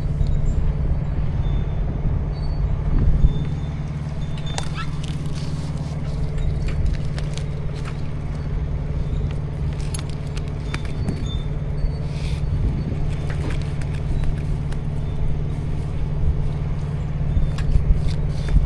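Engine running steadily at a constant low drone, with scattered light clicks and knocks over it.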